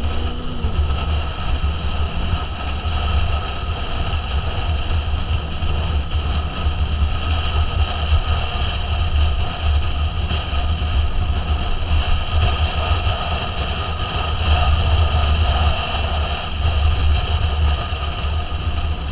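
Motorcycle cruising at steady road speed: a steady low rumble of wind and road noise, with the engine running underneath.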